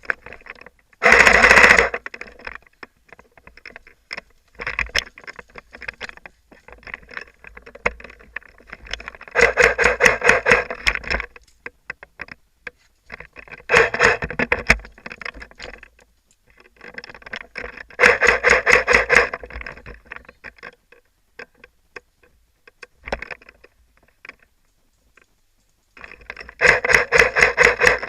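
Airsoft gun firing five bursts of rapid full-auto fire, each a fast rattle of shots lasting one to two seconds, the first and last the loudest. Scattered clicks and rustling of movement fill the gaps.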